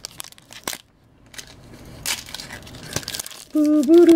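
Foil wrapper of a trading card pack crinkling and tearing as it is ripped open by hand. Near the end a drawn-out voice, held on one slowly wavering pitch, comes in louder than the wrapper.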